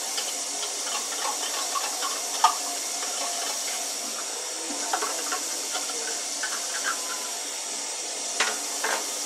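Water running from a kitchen tap into an emptied can, a steady hiss, with scattered clinks and knocks of the can being handled and one sharper knock about two and a half seconds in.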